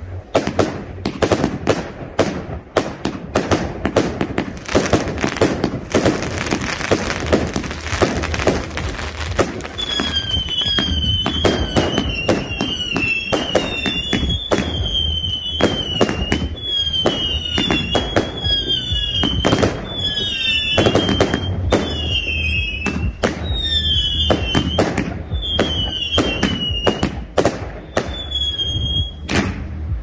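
Consumer fireworks firing in quick succession: a rapid volley of sharp bangs and crackle. From about a third of the way in, most shots are led by a short warbling high whistle, about one a second, each cut off by a bang.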